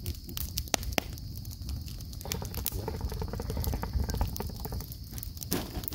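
Wood campfire crackling: burning logs give off irregular sharp pops and snaps over a low rumble, with two louder snaps about a second in.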